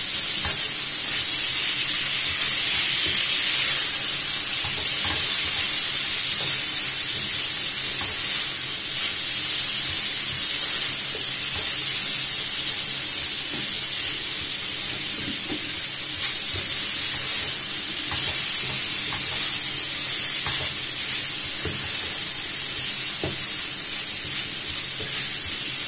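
Sliced zucchini, carrots, peppers and garlic sizzling steadily in a hot frying pan while being stirred with a wooden spatula, with scattered light taps and scrapes of the spatula against the pan. The garlic is being tossed with the sautéed vegetables until it gives off its aroma.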